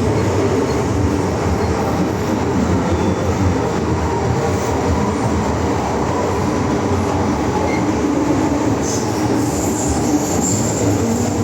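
MTR M-train running through the Island Line tunnel, heard from inside the car: a steady rumble of wheels on rail and running gear, with a faint squeal from the wheels.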